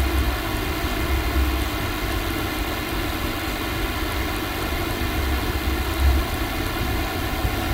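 Steady low drone of background machinery with an electrical hum running through it, and faint taps of keyboard typing.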